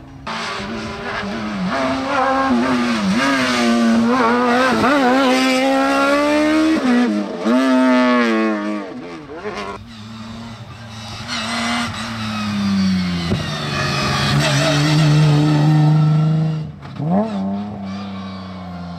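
Historic rally car engine revving hard on a special stage, the pitch climbing and dropping sharply with each gear change. In the second half a lower engine note runs steadier, falls once, then cuts off suddenly near the end.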